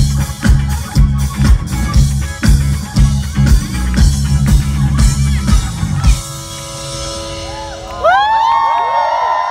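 Live rock band playing loudly, with drum kit and amplified guitar and bass. The song cuts off about six seconds in, a held chord rings on, and near the end the crowd starts cheering and whooping.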